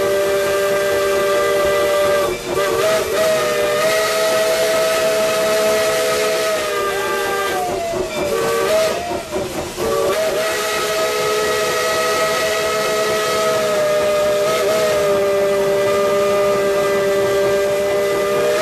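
Steam locomotive chime whistle sounding a chord of several notes, blown almost continuously in long blasts. It briefly drops out about two seconds in, and the pitch wavers and breaks again between about eight and ten seconds.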